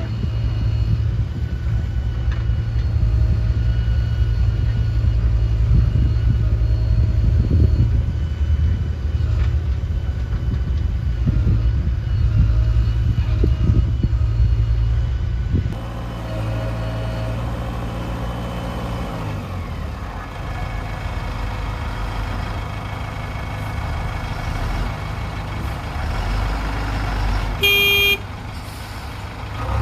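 Diesel engine of a JCB backhoe loader running loudly and steadily while loading mud, its note changing about halfway through and dropping for a few seconds. A short vehicle horn toot sounds near the end.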